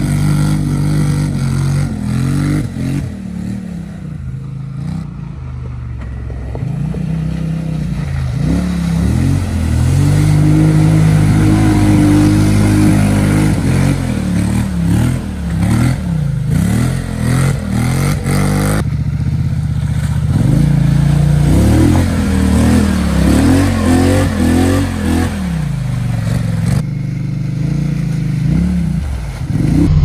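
Polaris Sportsman XP 1000 quad ATV engine revving hard again and again as it churns through mud, its pitch rising and falling every second or two.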